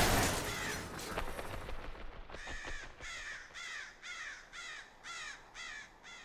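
A crow cawing over and over, about two harsh caws a second, starting a little over two seconds in. It is preceded by a loud rushing swell at the very start that fades away over the first two seconds.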